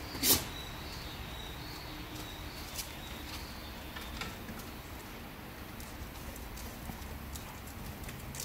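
Dogs moving about, their claws ticking sparsely on paving and wooden pallet platforms, with one short, sharp loud sound near the start.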